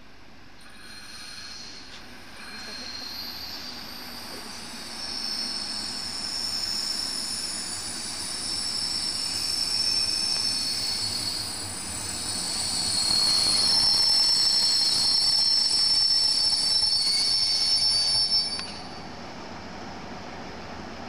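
DB class 219 diesel locomotive (219 016-3) and its train running into the station, a high multi-tone squeal from the running gear over the rumble of the train, growing louder as it draws near. The sound cuts off suddenly about 18 seconds in, leaving a quieter steady hiss.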